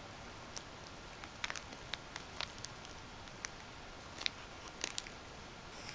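Scattered light clicks and ticks from a dangling metal bead chain as a kitten bats and bites at it, the sharpest a little after four seconds and twice around five seconds in.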